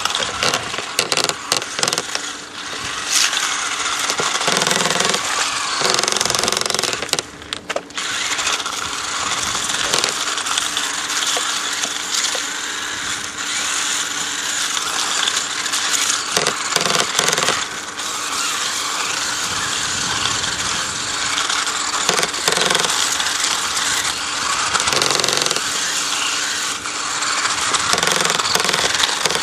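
Battery-powered remote-control cars driving over rough, wet ground: electric motors and wheels running with a continuous, rough rattling noise, briefly easing off about seven seconds in.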